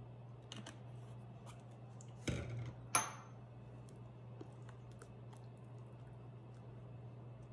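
Kitchen utensils working in a glass mixing bowl of thick cream cheese batter: a short knock and scrape about two seconds in, then a sharp clink that rings briefly off the glass. The stirring with a silicone spatula is quiet, under a steady low hum.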